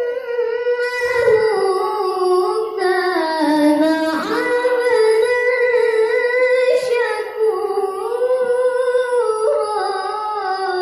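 A child qari reciting the Quran in the melodic tilawah style: a high voice holding long, ornamented notes that bend and waver, dipping in pitch about four seconds in.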